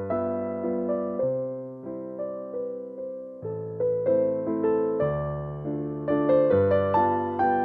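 Background piano music, gentle notes played in a steady flowing pattern.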